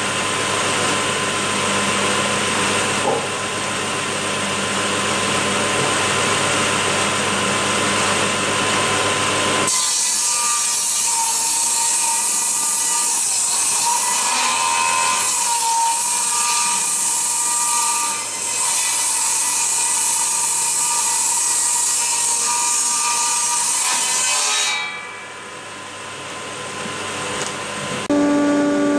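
Table saw running and ripping wooden beams lengthwise. The sound changes about ten seconds in, turning hissier with less low hum, and drops away sharply near the end.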